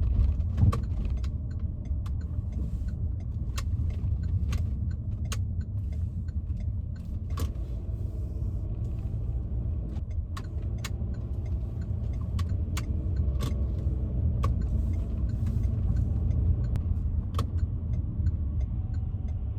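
Car cabin noise while driving: a steady low road-and-engine rumble, with scattered light clicks and rattles.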